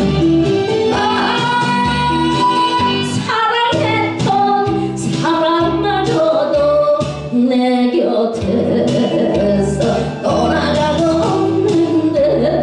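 A woman sings into a microphone over amplified instrumental accompaniment with a steady beat. The voice comes in about a second in with long, held notes.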